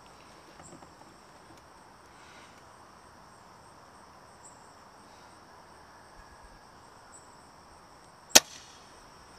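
Faint steady chirring of insects, then about eight seconds in a single sharp crack from a Novritsch TAC 338 bolt-action spring-powered airsoft sniper rifle firing one BB.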